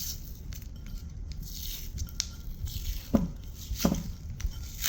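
Light handling noises of the freshly drilled tile: scattered small clicks and knocks, with two short falling squeaks about three and four seconds in. The drill is not running.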